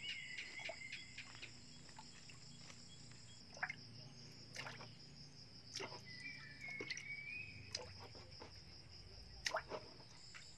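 Steady high-pitched drone of forest insects, with scattered soft knocks and splashes of a person wading through shallow swamp water. A short warbling whistle sounds twice, once at the start and again around seven seconds in.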